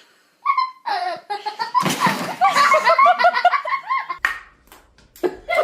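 People laughing in quick repeated bursts, with a short rough noisy outburst about two seconds in. The laughter breaks off near four seconds and starts up again near the end.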